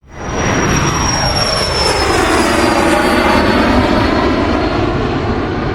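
Jet aircraft flying past: a loud rushing roar with a high whine that slowly falls in pitch as it passes, starting abruptly.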